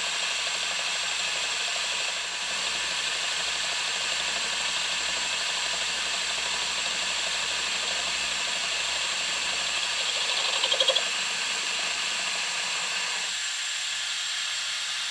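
Milling machine running a chamfer cutter along the edge of a slot in a stainless steel rod: a steady high hiss of cutting, with a brief rattle of a few quick louder pulses about ten and a half seconds in.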